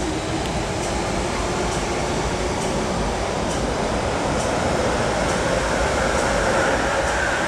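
An MTR M-Train (Metro-Cammell electric multiple unit) running through the station without stopping, heard behind platform screen doors. It makes a steady rail rumble that grows slowly louder, with a faint tick about once a second and a whine that comes in during the second half.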